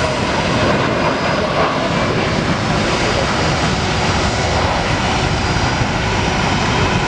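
Airbus A340 jet engines at takeoff power: a loud, steady rush of jet noise.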